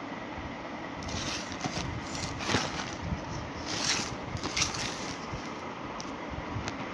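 Packaging being handled: a few short rustles and scrapes, the clearest about two and a half, four and four and a half seconds in, over a steady background rumble.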